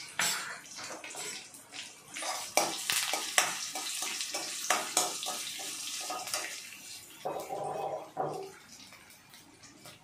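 A steel spoon scraping and clinking against a steel kadhai while stirring a tempering of mustard seeds, green chillies and curry leaves frying in hot oil, over a steady frying hiss. The scrapes and knocks come thickest in the middle.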